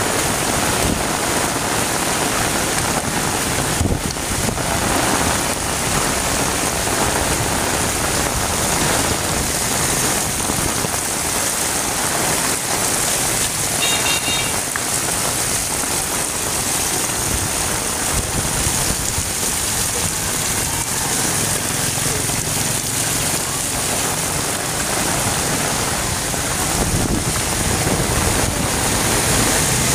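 Heavy rain pouring steadily onto a flooded street, with the rain splashing into standing water. About halfway through there is a short high-pitched tone.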